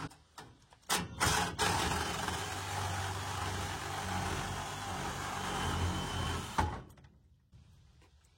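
A power saw runs for about six seconds, cutting. It starts after a few clicks about a second in and stops abruptly near the end.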